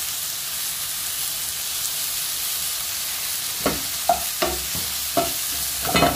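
Button mushrooms sizzling as they fry in hot olive oil in a pan. A little past halfway, a wooden spatula starts stirring them, making several quick scraping strokes.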